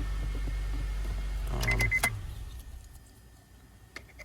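2007 Honda Fit's engine idling, then switched off with the key about two seconds in. The shutdown brings a click and a short run of electronic beeps, and a few faint key clicks follow near the end.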